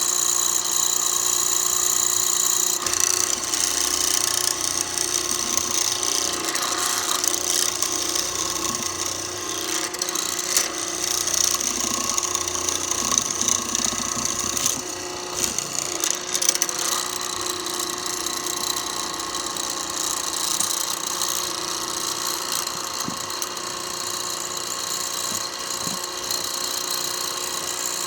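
Mortising machine's electric motor running steadily as its hollow chisel and bit cut square holes in wood.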